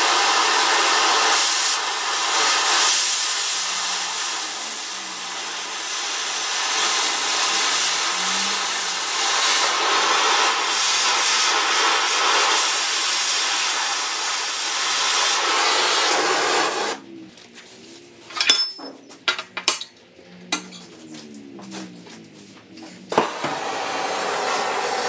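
Oxy-acetylene cutting torch hissing steadily as it burns through a steel bracket, then shut off suddenly about 17 seconds in. A few sharp metal clinks and knocks follow, and a steady hiss returns near the end.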